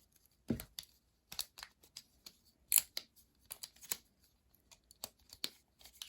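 Plastic twist-snake puzzle being turned by hand during a solve: irregular sharp clicks and snaps of its segments rotating into place, about one or two a second, the loudest about three seconds in.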